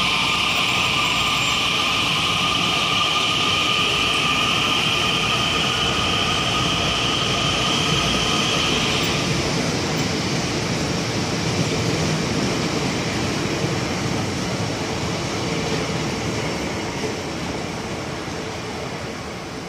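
ITX-Saemaeul electric multiple unit pulling away from the platform: its traction motors whine at two steady high pitches over the rumble of wheels on rail. The whine stops about halfway through, and the rumble fades near the end as the train draws away.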